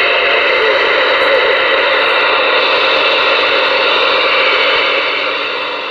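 Ranger RCI-2970N3 radio's speaker giving loud, steady receiver static (open-squelch hiss) between transmissions, beginning to fade near the end.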